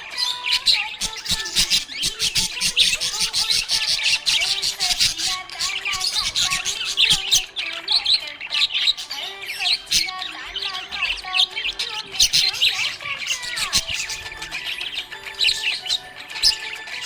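Budgerigars chirping and chattering without a break: a dense stream of quick, overlapping high chirps, clicks and squawks.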